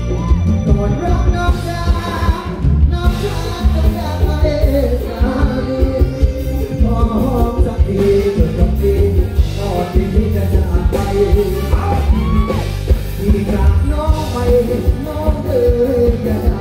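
Live band music with a man singing lead into a microphone, backed by electric guitar, bass and drums with a steady beat, heard through the concert's PA speakers.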